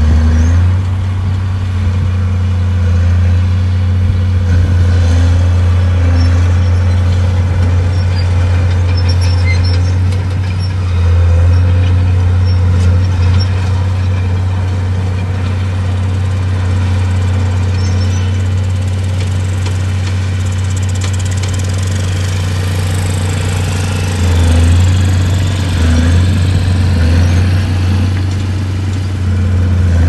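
Heavy construction machine's diesel engine running, a steady low drone that swells briefly about 11 seconds in and again around 24 to 26 seconds.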